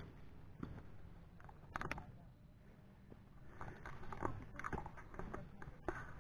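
Irregular crunching and clicking, close to the microphone, growing busier about halfway through.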